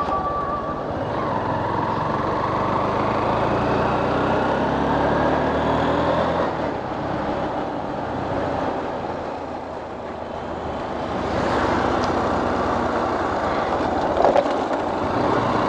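Honda X-Blade's single-cylinder engine running under way, mixed with wind and road noise, its note rising and falling with the throttle. It goes quieter about ten seconds in as the bike eases off, then picks up again.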